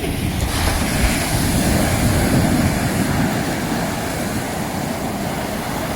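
Steady rushing noise of wind and surf on the shore, with no single sound standing out.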